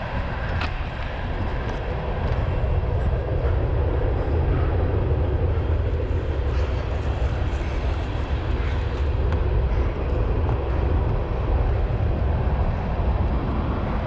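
Cyclocross bike being ridden over wet grass and mud, its tyres and drivetrain running under a steady low wind rumble on the microphone.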